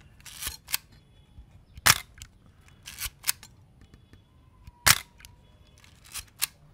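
Chinon CS 35 mm SLR shutter released twice at 1/250 s, each a single sharp mechanical clack, about two and five seconds in. Between the releases come shorter clicks and rasps of the film advance lever cocking the shutter.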